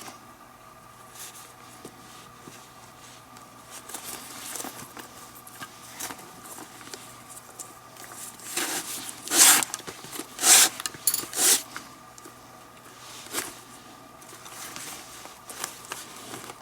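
Leather lace being pulled by hand through tight lace holes of a baseball glove: soft rustling, then three loud pulls about a second apart around the middle.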